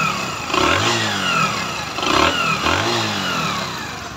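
Bajaj Discover 100's freshly rebuilt single-cylinder four-stroke engine revved twice with quick throttle blips. Each time the revs rise and then fall back toward idle.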